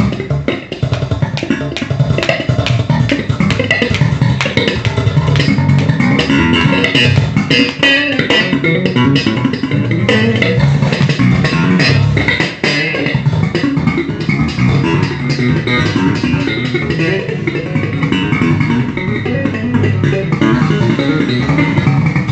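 Electric bass guitar played slap style: a continuous fast run of slapped and popped notes with sharp, percussive attacks over a strong low end.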